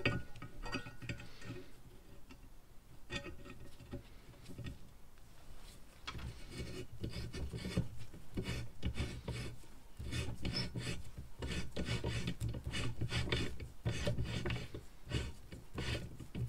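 Hand tap turned in a tap wrench, re-cutting the thread of a welded nut on a steel bumper bracket that had started to cross-thread. It makes a run of short rasping, scraping strokes of steel on steel, sparse for the first few seconds and then coming thick and steady.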